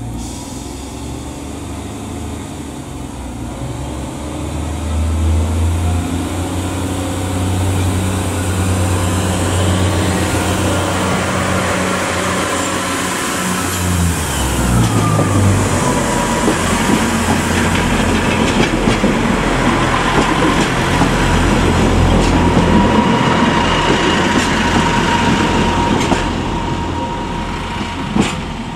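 Class 142 Pacer diesel railbus pulling away and passing close by. Its underfloor diesel engines rise in pitch as it accelerates, and the engine note drops sharply about halfway through as it goes past. After that comes a steady whine and wheel clatter over the rail joints as it draws away.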